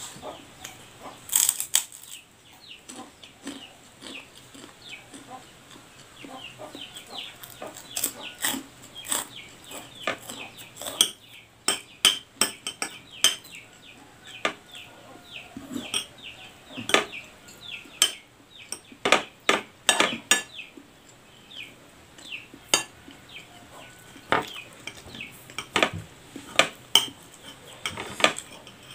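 Cutlery clinking and scraping on a plate as someone eats, in many short sharp clicks, with chickens clucking in the background.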